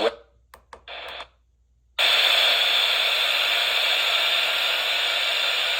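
Weather radio receiver static: a few short clicks and a brief burst of hiss, then from about two seconds in a loud, steady hiss.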